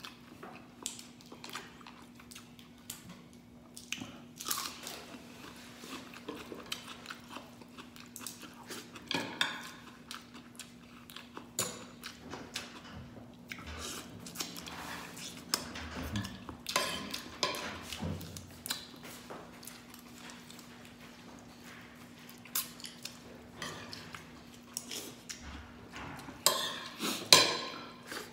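Close-up eating of crab cooked in coconut milk with rice by hand: wet chewing, biting and sucking at the fingers, with irregular crunches and clicks. The loudest bursts come around the middle and near the end, and a faint steady hum runs underneath.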